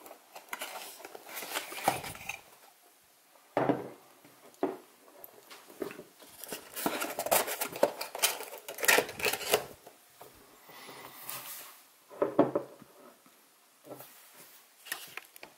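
Unpacking noises: rustling and scraping of a cardboard perfume box and clear plastic wrapping, with several sharp knocks as a glass perfume bottle and the box are set down on a wooden table.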